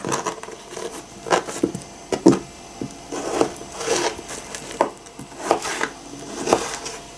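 Small kitchen knife cutting a soft pear into large chunks on a plastic cutting board: irregular short knocks of the blade through the fruit onto the board, roughly one or two a second.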